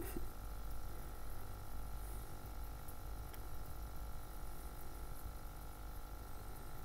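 A steady mechanical hum with a low rumble and a faint constant whine that neither rises nor falls.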